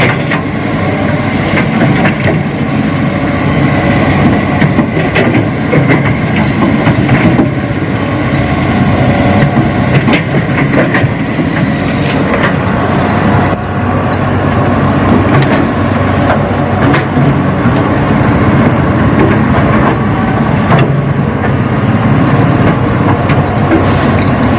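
Radio-controlled model excavator and dump truck at work: a steady engine-like drone with a whine above it, and scattered clicks and knocks.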